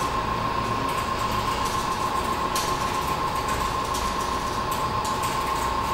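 Steady machine hum with a constant high-pitched whine over a noisy hiss.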